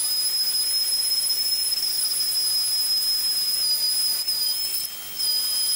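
Electric random orbit sander running with a cotton towel under its pad, used as a polisher to buff wax on a wooden tabletop: a steady high-pitched whine with hiss, dipping briefly about five seconds in.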